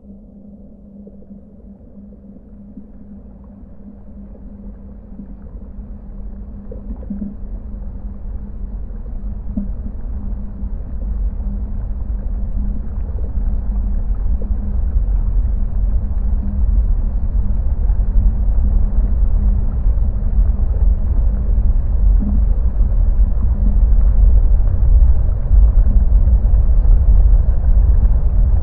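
Low rumbling drone from a soundscape built out of site field recordings, swelling steadily louder throughout, over a steady low hum with a few faint blips.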